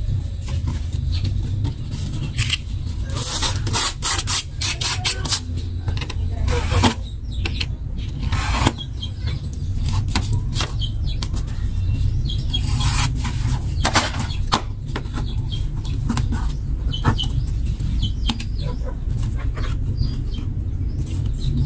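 Utility knife blade scraping and cutting along a thin trophy plate in irregular strokes, with clicks from the plate and tools being handled, over a steady low rumble.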